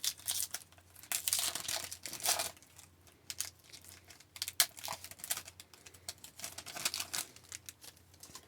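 A hockey card pack wrapper being torn open and crinkled, in irregular crackling bursts, with the cards handled as they come out.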